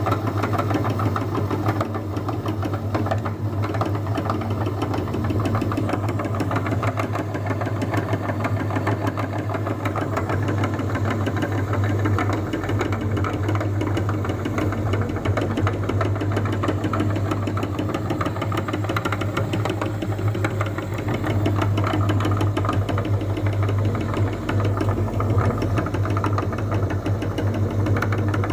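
Electric meat grinder running steadily under load, a low motor hum with a dense mechanical rattle over it.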